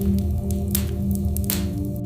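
Wood fire crackling, with two louder pops about a second apart, over soft ambient music with held low tones.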